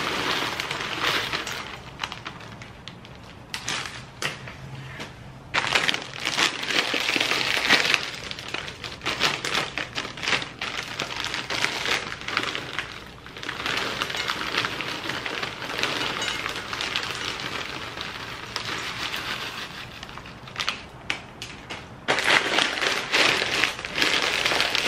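Popcorn being poured out of crinkly plastic snack bags into a glass bowl, with the kernels hitting the glass and each other and the bags rustling. The sound comes in several pours with short lulls between them, and another bag is handled near the end.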